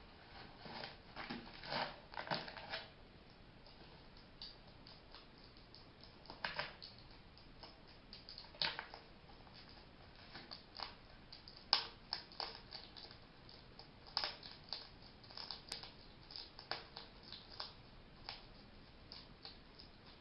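A pet hedgehog's short, sharp sneezing puffs and snuffles, coming irregularly, some singly and some in quick clusters, with the loudest a little before the middle. The owner has since learned that this sneezing is a sign the hedgehog is happy.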